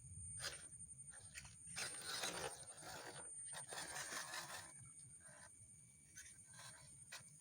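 1/12-scale MN99S RC off-road truck working along a dirt trail: faint, irregular crunching and scraping of its tyres on soil and stones, heaviest a couple of seconds in, over a steady thin high whine.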